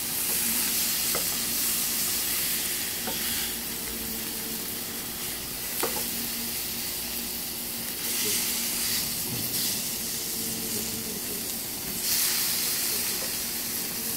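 Pork sizzling as it sears in an oiled frying pan over a high gas flame, browning the surface. The sizzle swells around eight and again around twelve seconds in, and there are a few light taps of wooden chopsticks against the pan.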